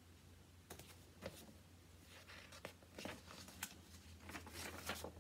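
Pages of a paperback picture book being handled and turned: a string of soft rustles and flicks of paper, over a low steady hum.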